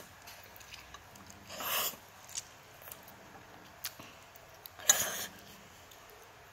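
A child slurping Samyang instant noodles: two short airy slurps, about two and five seconds in, with a few faint clicks between.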